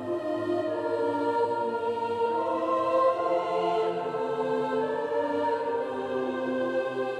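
Background music: slow sustained chords with choir-like voices.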